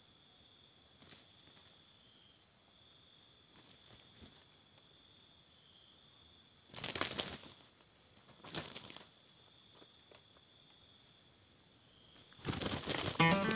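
Steady, pulsing high-pitched trill of crickets or cicadas, with two brief flurries of wing-flapping, about seven and eight and a half seconds in, as two roosters, a decoy cock and a wild red junglefowl, spar. A louder sound swells in near the end.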